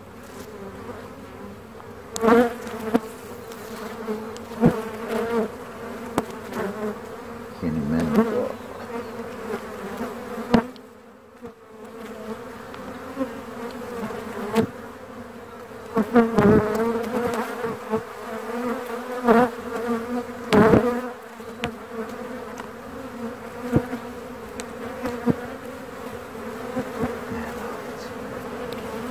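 A honeybee colony in an open hive humming steadily, with several sharp knocks of wooden hive frames being handled and set back into the box.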